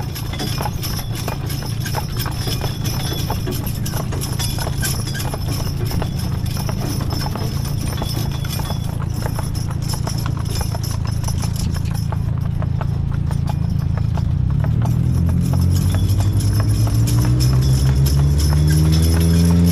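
Hooves of a team of two Belgian draft horses clip-clopping at a walk on pavement over a steady low rumble. About fifteen seconds in, a motor vehicle's engine grows louder and rises in pitch as it accelerates.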